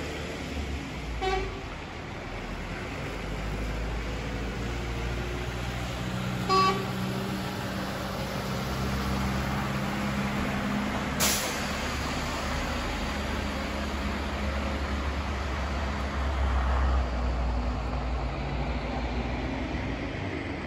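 Road traffic and heavy vehicle engines rumbling steadily, with two short horn toots, one about a second in and another near seven seconds. A single sharp click comes about halfway through.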